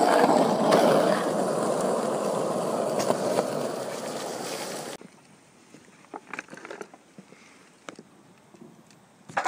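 Loud, steady rushing noise of wind on the microphone of a fast-moving phone. It cuts off about five seconds in, and after that there are only a few faint clicks.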